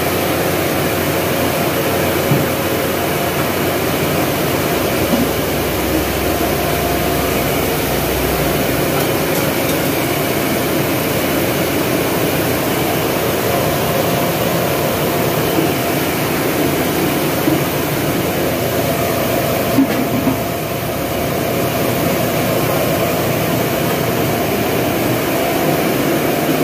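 Corn grinding mill running steadily, a loud continuous mechanical noise as dehulled corn kernels are ground into grits.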